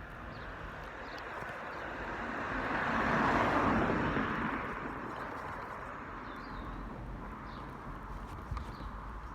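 A car passing by: the noise swells to a peak about three seconds in, then fades away over the next two seconds.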